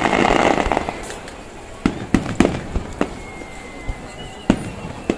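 Aerial firework shells bursting. A dense crackle of bursting stars fills the first second, then comes a string of separate sharp bangs of varying loudness.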